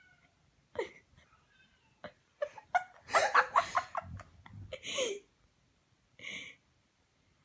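A person laughing in loud, breathy bursts for a few seconds, after a couple of faint cat meows in the first two seconds.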